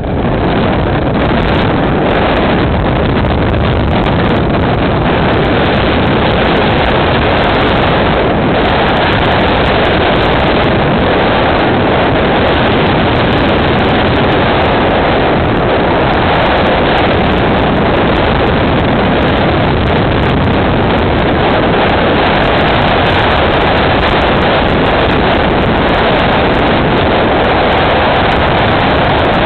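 Loud, steady rushing of wind over the microphone, with the vehicle driving through a blizzard.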